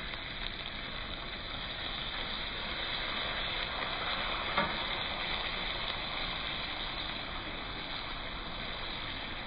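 Bone-in ribeye searing in hot oil in a HexClad pan: a steady sizzle. This is the final high-heat sear of a reverse-seared steak, building the caramelized crust.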